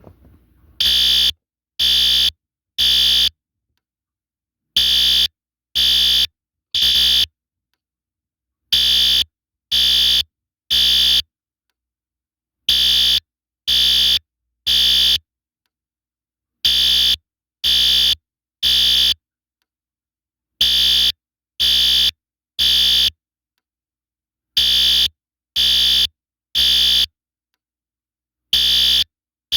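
System Sensor L-Series electronic fire alarm horn sounding the temporal code 3 evacuation signal. It gives groups of three buzzy, high-pitched half-second blasts, each group followed by a pause of about a second and a half, repeating every four seconds. The horn starts straight into the three-blast pattern about a second in.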